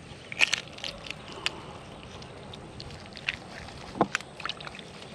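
Small wet clicks, scrapes and squelches of a knife and fingers working inside a bluegill as it is gutted, with a couple of sharper ticks about half a second and four seconds in, over a faint steady background hiss.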